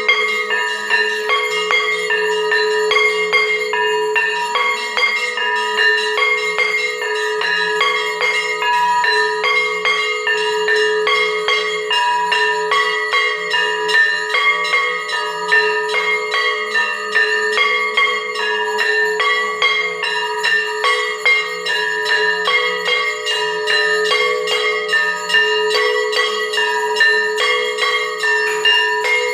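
Temple aarti bells ringing rapidly and without pause, several bells of different pitches struck many times a second in a steady, regular pattern.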